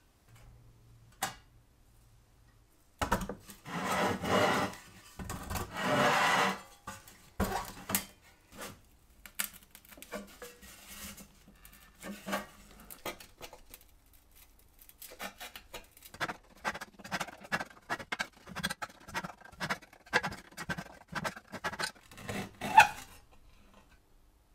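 Old metal gasoline-stove parts being handled and taken apart on a bench: a few seconds of scraping and rubbing of metal on metal, then a long run of light clicks and knocks as pieces are turned and set down, with one sharper knock near the end.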